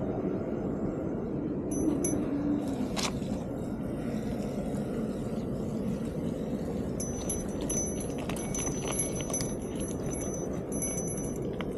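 Steady wind and riding noise from a bicycle being ridden, with a click about three seconds in and faint high-pitched ringing tones that come and go through the second half.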